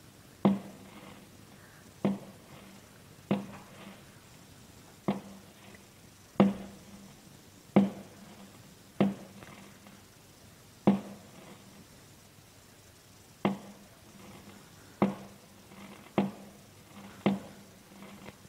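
About a dozen sharp knocks or taps, a second or two apart, each with a short low ring after it.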